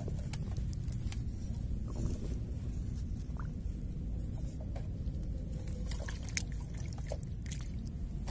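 Steady low rumble with scattered small clicks and rustles as fishing gear and a cloth are handled close to the microphone.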